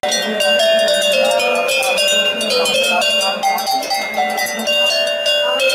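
A set of metal cowbells of different sizes hanging from a wooden pole, struck one after another in quick succession. Several different pitches ring over one another.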